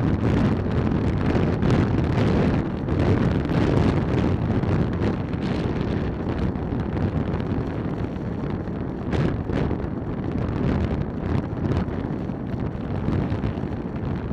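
Wind buffeting the microphone of a helmet camera on a moving motorcycle: a steady, loud rush, heavy in the low end, easing off slightly near the end.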